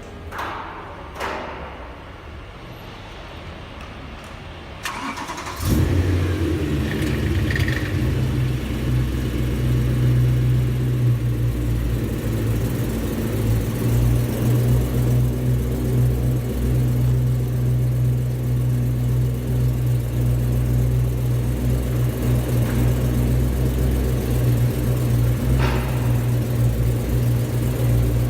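A few light clicks and a thud, then about five seconds in the BMW E92 M3's 4.0-litre V8 is started and settles into a steady idle.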